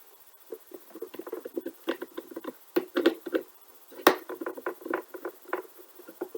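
Light clicks, ticks and scrapes from handling the parts of a gel blaster's gearbox as it is taken apart, with one sharper click about four seconds in.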